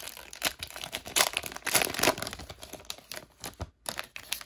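Foil wrapper of a SkyBox basketball card pack being torn open and crinkled in the hands: a dense crackle, strongest about one to two seconds in, thinning to a few sharp crinkles near the end.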